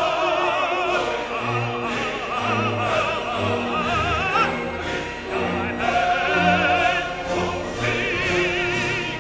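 Classical music with an operatic voice singing with wide vibrato over an orchestral accompaniment.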